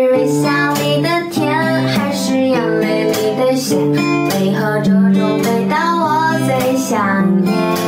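Background music: a pop song with a melody line over a steady accompaniment.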